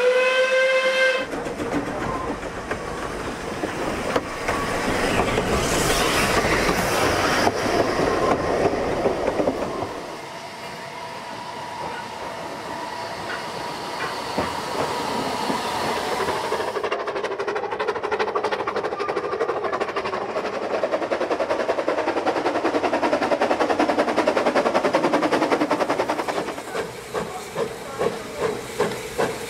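Narrow-gauge steam locomotive: a short blast on its steam whistle at the start, then the sounds of the train with steam and rail noise. Near the end a regular beat of about two a second sets in, the exhaust beats of the engine working.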